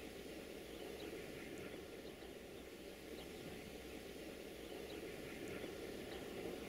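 Faint, steady low rumble of a distant Romanian 060-DA (LDE2100) diesel-electric locomotive running, with small bird chirps over it.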